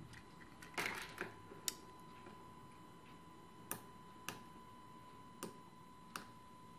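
Small plastic clicks of a handheld RF remote key fob being handled and its buttons pressed. A short cluster of clicks comes about a second in, then single clicks every second or so, over a faint steady high whine.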